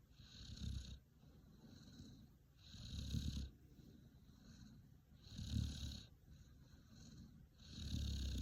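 Akita dog's low rumbling snore, rising with each breath: four louder breaths about two and a half seconds apart, with softer breaths between. The owner can't tell it from purring, and it stops when the head petting stops.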